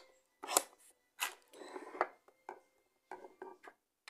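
Handling noise: a few short, separate rustles and clicks of small objects being moved and rubbed, with quiet gaps between.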